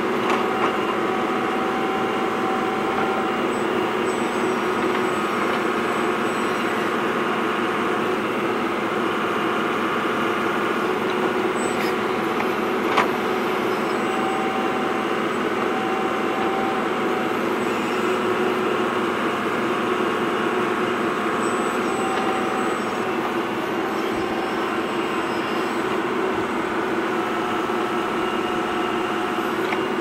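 Scale RC hydraulic excavator, a Caterpillar 374F model, working: a steady mechanical whine of its pump and drive, with held tones that come and go as the arm and bucket move, and a sharp click about 13 seconds in.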